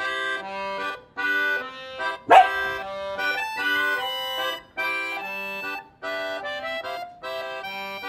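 Background music of held notes in short phrases, with a single sharp dog bark about two seconds in, the loudest sound.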